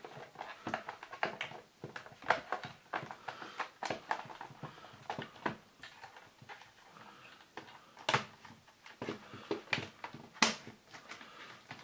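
Irregular plastic clicks and knocks as the casing of a Philips D6280 cassette recorder is handled and prised open, its clips letting go. Two louder, sharper snaps come in the second half.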